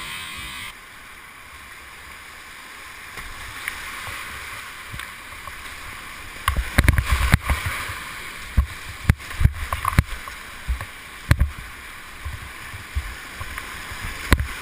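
A kayak run on rushing whitewater: steady river rush, and from about six and a half seconds in a string of sharp splashes and knocks.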